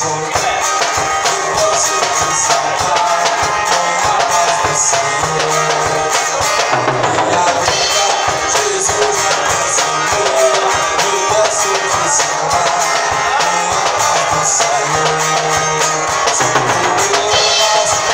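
Live worship music: an acoustic guitar strummed at a microphone, with percussion keeping a steady beat.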